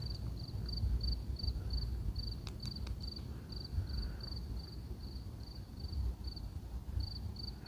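Cricket chirping steadily on one high note, about three chirps a second, over a low rumbling background noise.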